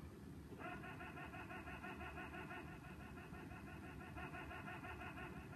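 A short high-pitched clip looped in a fast, even stutter, repeating many times a second, played from a TV's speaker across a small room. It starts about half a second in and keeps going.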